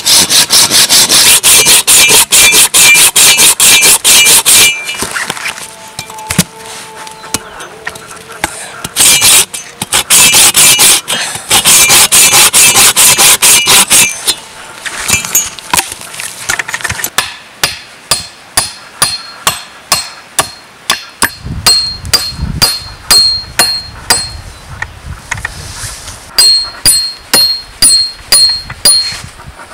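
Hand saw cutting through a wooden branch in fast back-and-forth strokes, in two loud spells with a pause between. Then a steady run of hammer blows, about two a second, the last few ringing like metal, as nails are driven.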